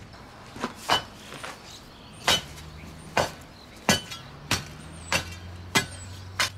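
Steel bar being driven down into broken concrete rubble: sharp metallic strikes with chinks of concrete chunks, about nine blows roughly two-thirds of a second apart.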